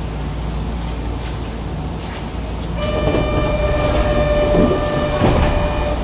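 Low steady rumble of a Kyoto Municipal Subway Tozai Line train at the platform. About three seconds in, a steady signal tone with several overtones sounds for about three seconds, with a sharp knock near the end.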